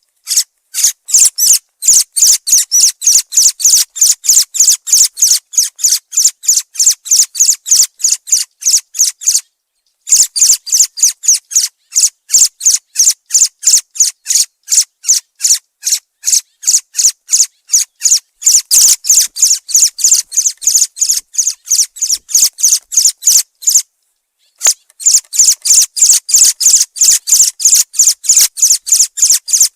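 Thrush (zorzal) calling: a fast, even series of high, thin notes at about five a second, cut off by a brief silence about ten seconds in and again near twenty-four seconds.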